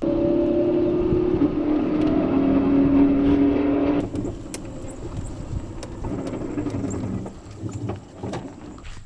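A motor running with a steady, loud hum whose pitch steps slightly lower, cut off abruptly about four seconds in. After that come fainter rustling and scattered clicks.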